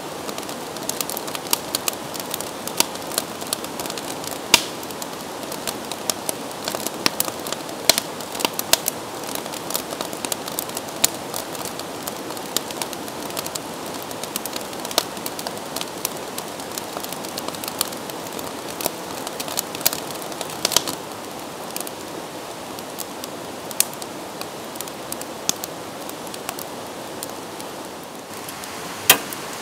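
Steady rush of a creek's white water, with frequent sharp, irregular crackles and pops from a wood fire burning in a small fire pit.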